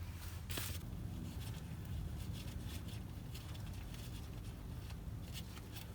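Transmission oil draining from the gearbox into a drain pan, a faint steady trickle with a few small clicks and scrapes.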